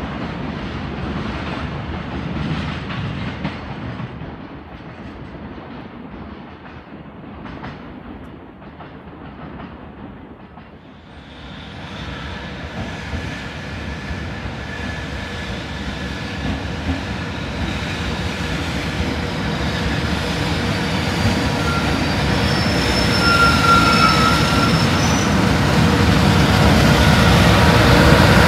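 Freight wagons clattering over rail joints, fading away over the first ten seconds. Then an EH500 electric freight locomotive approaches, its cooling-blower noise and steady whining tones growing steadily louder to the end.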